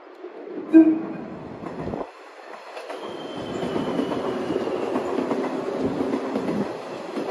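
A 113 series electric train gives one short blast on its typhon air horn about a second in. Then the train runs past, its running noise growing louder from about three seconds in.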